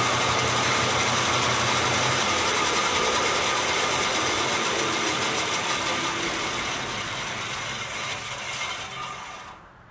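Bandsaw running with a steady mechanical rattle, used here for cutting black Delrin parts off their carrier; the sound stops near the end.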